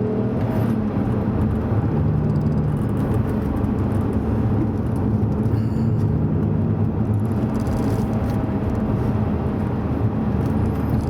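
Alfa Romeo Brera's 3.2 V6 engine running at a steady pace on the road, its misfire repaired, over tyre and road noise from a rough, poorly maintained surface.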